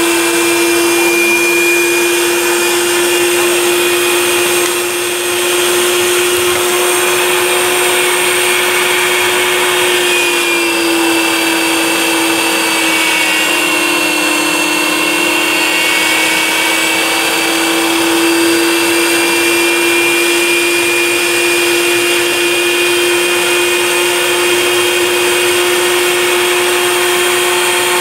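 Electric meat grinder motor running steadily while it pushes food out through the grinding plate. Its pitch sags slightly about ten seconds in and recovers by about eighteen seconds.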